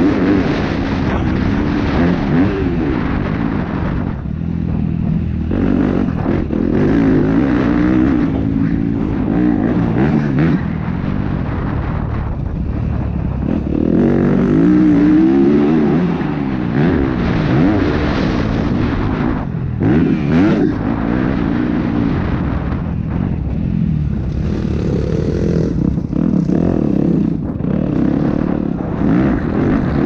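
Motocross bike engine revving hard and easing off over and over, its note repeatedly rising and falling as the throttle is opened and shut around the track, with wind rush on an onboard microphone.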